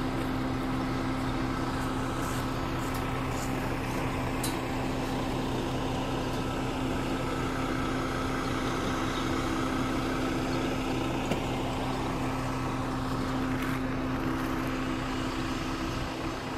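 A steady low mechanical hum at one unchanging pitch over a hiss of background noise, with a few faint clicks.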